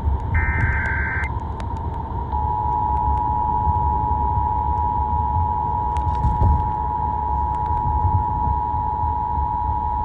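Emergency Alert System test tones: the last data burst of the SAME header sounds for about the first second, then about two seconds in the steady two-tone EAS attention signal (853 and 960 Hz) begins and holds. A low rumble runs underneath.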